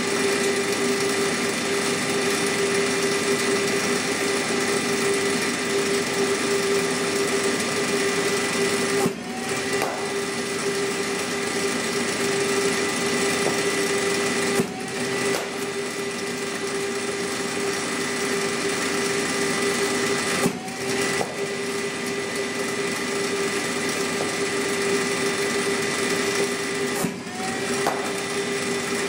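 Steady hum of a cricket bowling machine's motor-driven wheels. About every six seconds the hum dips briefly and then climbs back up as a ball is fed through the wheels and fired down the net.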